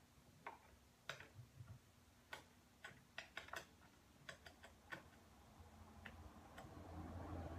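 Irregular light clicks and taps, a dozen or more at uneven intervals, from small parts being handled inside the car. A low rumble builds up over the last couple of seconds.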